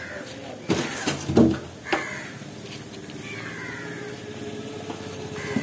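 A cat meowing several times, each cry falling in pitch, with a few sharp knocks about a second in.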